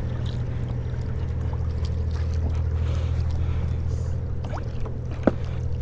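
Old Town Big Water 132 ePDL pedal kayak under way, pedalled without the electric assist: a steady low hum with water running along the hull. A short knock comes near the end.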